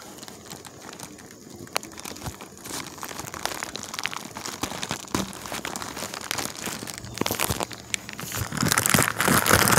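Black plastic poly mailer bag being handled and crinkled, with a louder burst of crinkling and tearing about nine seconds in as it is ripped open.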